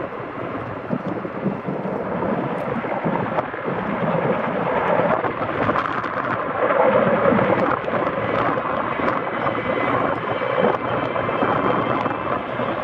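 Sikorsky CH-54A Skycrane heavy-lift helicopter flying, a steady rumble of rotor and twin-turbine engine noise that grows a little louder in the middle.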